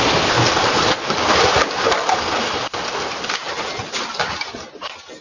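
The ongoing rumble of a house explosion picked up by a doorbell camera's microphone, with debris raining down in many sharp clicks and knocks; the noise dies away near the end.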